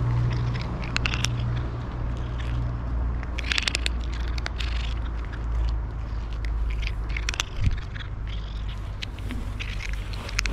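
A cat crunching dry kibble: irregular runs of crisp little cracks and clicks, over a steady low rumble.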